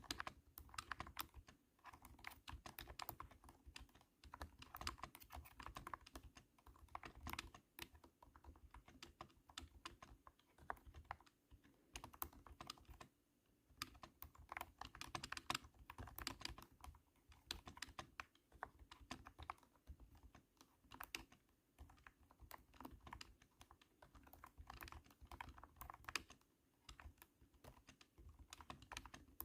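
Steady typing on a cat-shaped keyboard: thunky keystrokes in quick runs, with a brief pause a little before halfway.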